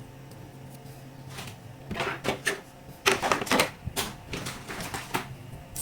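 Scattered sharp clicks and knocks of laptop parts being handled, over a low steady hum.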